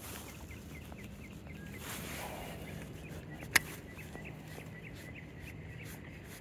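A small animal chirping in a quick run of short, high calls, over a steady low hum. There is a soft rush about two seconds in and a single sharp click, the loudest sound, about three and a half seconds in.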